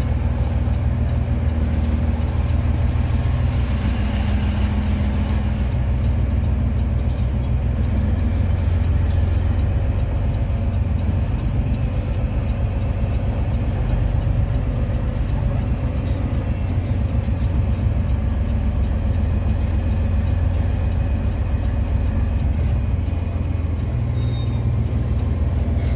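Peterbilt semi truck's diesel engine running steadily at low speed, its low drone swelling and easing slightly over the span.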